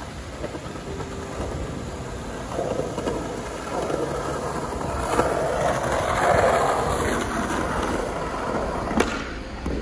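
Skateboard wheels rolling over stone paving, swelling louder as the board comes closer, then a single sharp clack of the board near the end as the skater pops a trick.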